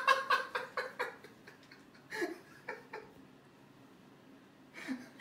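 A person laughing softly in short, breathy bursts. It is strongest in the first second, then comes in a few brief spurts with quiet stretches between.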